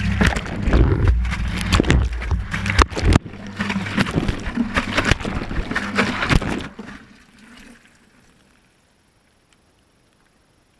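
Water sloshing and tumbling inside the drum of a Whirlpool Indiana 1400 front-loading washing machine mid-wash, heard from inside the drum through the camera's housing, with many sharp knocks as the load is thrown around, over a low steady hum. The tumbling breaks off briefly about three seconds in, then stops about seven seconds in, fading to near silence as the drum comes to rest.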